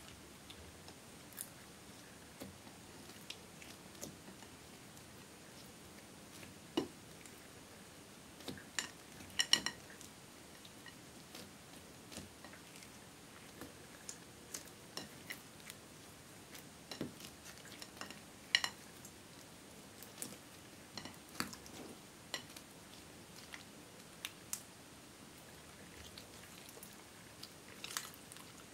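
Clear slime mixed with crushed eyeshadow being kneaded and folded by hand: sticky squishes with scattered clicks and pops, loudest in a quick cluster about nine seconds in.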